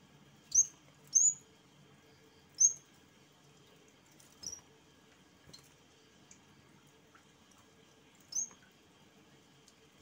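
Yellow-bellied warbler (cikrak bambu) giving short, high, sharp chirps in an irregular series, about five in all. The first three, within about the first three seconds, are the loudest.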